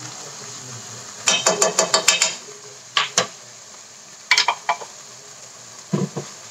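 Blended chilli and onion spice paste sizzling steadily in a nonstick wok. A quick run of clinks and taps comes about a second in, with a few more knocks later. Near the end a plastic spatula stirs and knocks in the pan.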